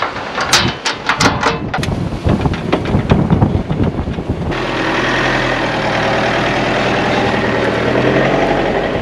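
Sharp metal clicks and rattles of a caravan's tow coupling and chain being handled, then, about halfway through, a Mitsubishi L200 pickup's diesel engine running steadily.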